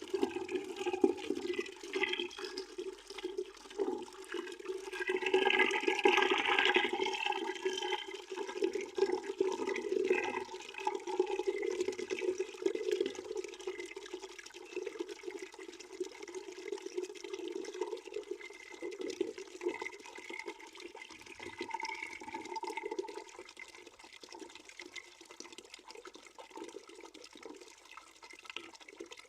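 A stream of water pouring and splashing into a bucket, a continuous rushing with a steady low hollow tone. It swells louder about five seconds in, then slowly grows softer.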